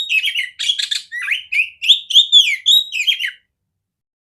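Oriental magpie-robin (kacer) singing: a fast, loud run of whistled notes, down-slurs and quick chattering notes that cuts off abruptly near the end.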